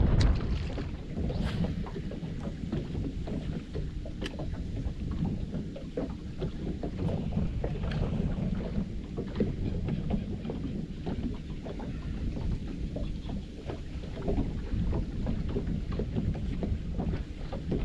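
Wind buffeting the microphone in a low, steady rumble, with small irregular ticks and slaps of water against a small boat's hull.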